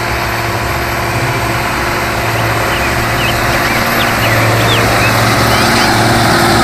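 New Holland farm tractor's diesel engine running steadily under load as it pulls a harrow through tilled soil. The sound cuts off abruptly at the end.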